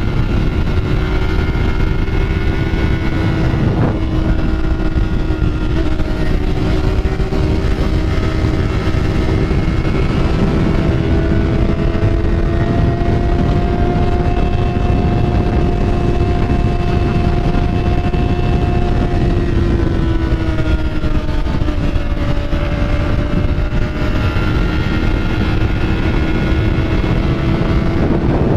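Motorcycle engine running steadily under way, its pitch drifting gently up and down with throttle and speed, dipping a little past two-thirds of the way through and then rising again. Wind rumbles on the microphone throughout.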